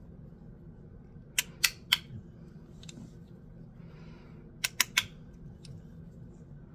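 Magnetic bean slider fidget toy from Every Day Coffee EDC clicking as its two halves are slid across each other and snap into place: two quick runs of three sharp clicks, a few seconds apart.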